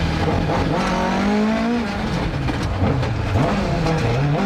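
Rally car engine at full throttle on a special stage, revving up through the gears. Its pitch climbs, drops sharply at a gear change, and rises again near the end.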